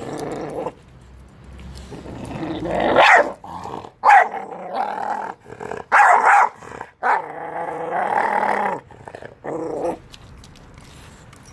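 Renascence Bulldogge puppy growling and snarling with sharp barks, in about six bursts, as it guards a raw turkey carcass from its littermate: a food-guarding warning display.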